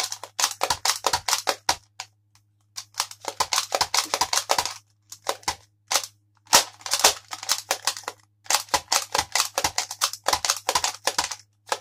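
Plastic clicking and rattling from a Nerf toy blaster's mechanism being worked by hand, in several runs of quick sharp clicks with short pauses between them.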